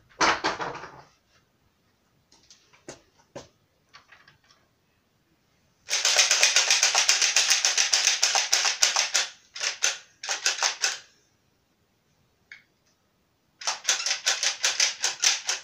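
A motorised toy foam-dart blaster firing in rapid bursts, a fast rattle of about ten clicks a second. There is a long burst of about three seconds, a shorter one, and another near the end, with a few faint clicks before them.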